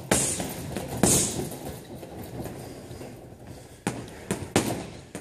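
Boxing-gloved punches landing on a hanging heavy bag: two hard hits in the first second or so, each with a sharp hiss, then a lull, then three quick hits near the end.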